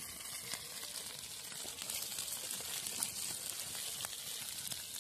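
Pieces of fish frying in oil in a pan, a steady sizzling hiss with a few light clicks.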